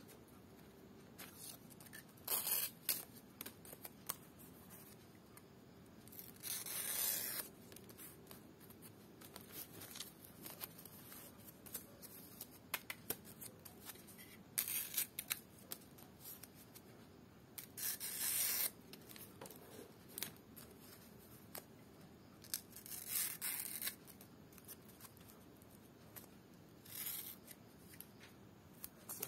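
Small scissors snipping into a strip of dried lontar palm leaf (ental). There are about six short runs of cutting, with light clicks and leaf handling in between.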